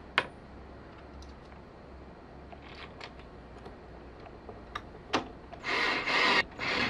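Screws being driven into a plastic cord hold-down bracket on a window frame: a sharp click, a near-quiet stretch with faint ticks, then a few short rasping, rubbing strokes starting over a second from the end.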